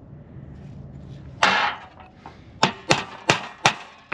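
A short scrape, then four sharp hammer taps about a third of a second apart on the steel thimble being seated in a synthetic winch rope.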